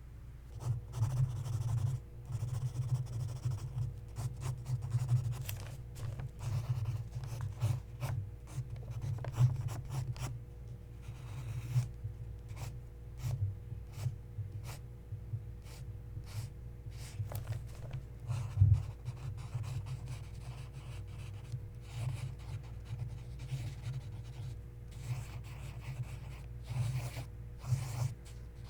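Pencil drawing on paper: continuous irregular scratching and shading strokes, with one sharper knock about two-thirds of the way through.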